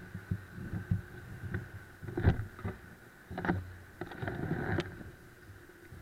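Irregular thumps and knocks of a jostled, body-worn camera, over a faint steady hum.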